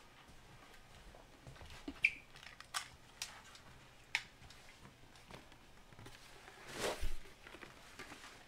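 Faint scattered knocks and clicks of someone moving about and handling things, with a short squeak about two seconds in. About seven seconds in there is a louder rustle and a soft thump.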